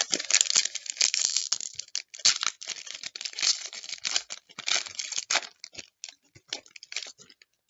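A foil trading-card pack being torn open and its wrapper crinkled, a busy crackling that stops abruptly shortly before the end.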